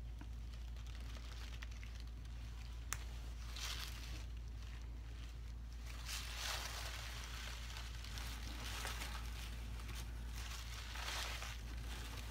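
Tissue paper crinkling and rustling under a silicone baby doll as it is handled and undressed, in a few short bouts, with one sharp click about three seconds in, over a steady low hum.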